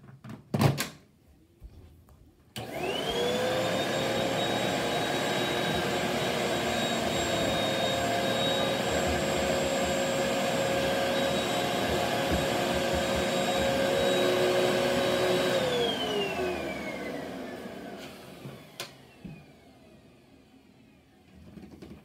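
A couple of sharp knocks, then a vacuum cleaner switched on: its motor whine climbs quickly to speed and runs steadily with a rushing of air for about thirteen seconds. It is then switched off and the whine falls away as the motor winds down.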